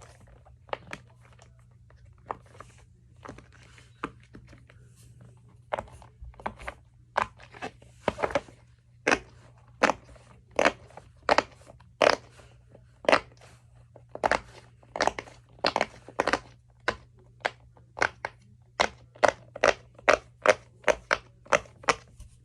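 Bubbles of a jumbo silicone pop-it fidget toy being pressed, popping one after another: a few scattered pops at first, then a steady run of sharp pops at about two a second from around six seconds in.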